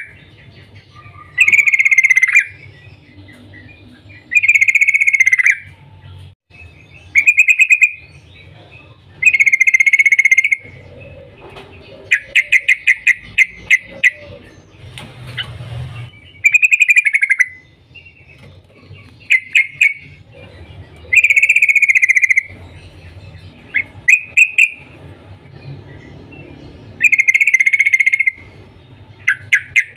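Yellow-vented bulbul (trucukan) calling: bubbly phrases about a second long, repeated every couple of seconds, mixed with quick runs of sharp 'cuk cuk' chips.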